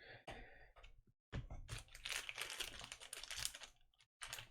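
Faint rustling and crinkling of glossy Prizm trading cards being handled and shuffled in the hands, with a short pause about a second in.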